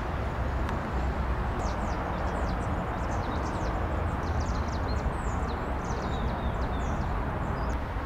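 Small birds giving many short, high, falling chirps from about a second and a half in until near the end, over a steady low rumble of distant city traffic.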